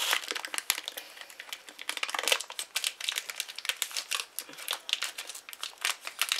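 Plastic bag crinkling as it is handled and folded in the hands, an irregular run of crackles.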